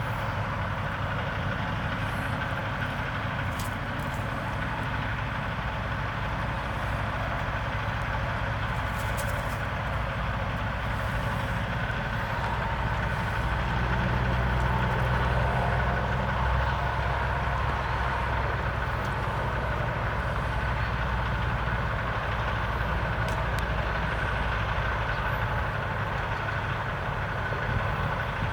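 Steady low rumble of an idling motor vehicle engine, a little louder about halfway through, with a few faint clicks.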